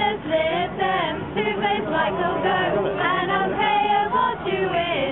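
A small group of mostly female carolers singing a Christmas carol together, unaccompanied.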